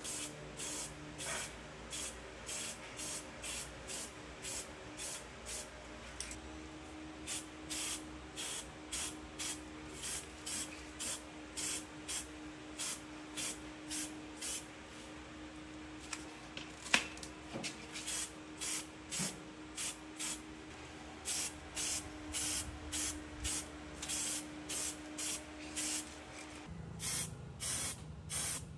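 Aerosol spray-paint can hissing in short bursts, about two a second, with a few brief pauses, as metal parts are spray-painted. A single sharp click sounds about 17 seconds in, over a faint steady hum.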